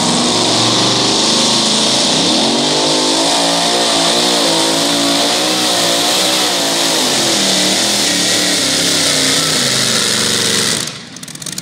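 Supercharged engine of a two-wheel-drive pulling truck running at high revs under load during a pull. Its pitch climbs about two seconds in, wavers up and down as the revs surge, then falls, and the sound drops off sharply near the end.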